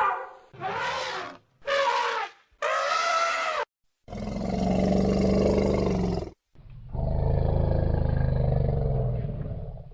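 Elephant calling: three short pitched trumpet-like calls, then two long, low roars of two to three seconds each.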